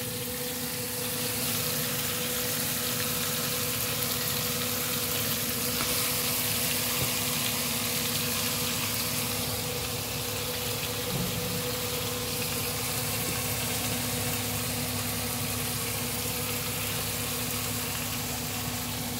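Spaghetti noodles and tuna sizzling steadily in a hot oiled pan, over a steady low hum.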